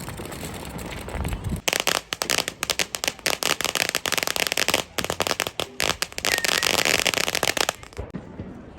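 Firecrackers going off in a dense, rapid crackle. It starts about one and a half seconds in and stops shortly before the end.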